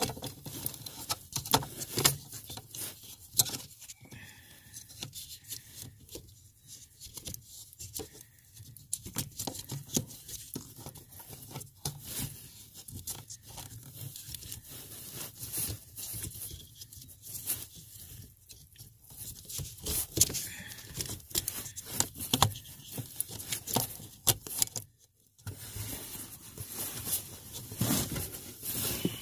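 Irregular scraping, rustling and clicking of hands working at a brake shift interlock switch by a column shift lever, close to the microphone.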